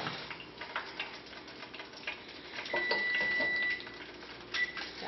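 Light scattered clicks and ticks as fresh deep-fried french fries are tipped and moved into a bowl. A high steady beep sounds for about a second near the middle, and briefly again near the end.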